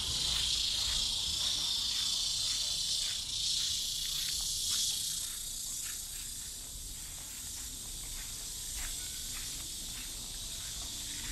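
A chorus of cicadas buzzing steadily, loudest in the first five seconds and a little softer after, with soft footsteps on a path.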